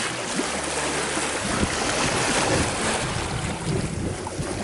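Sea water rushing and splashing at a sailboat's bow where dolphins are breaking the surface, with wind buffeting the microphone.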